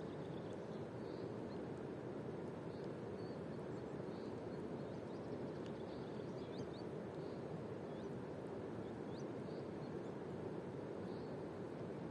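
Steady outdoor rushing background noise, with faint high bird chirps repeating every second or so and a few quick rising chirps in the middle.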